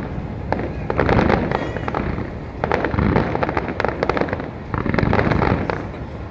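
Fireworks display: three rounds of bursts and dense crackling about two seconds apart, over a continuous low rumble of explosions.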